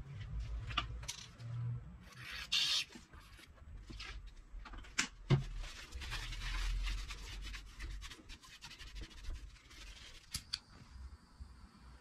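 Paper towel rubbing and wiping over the metal of a refrigerator compressor head, cleaning off oil with alcohol: irregular scrubbing and rustling, with a few light clicks.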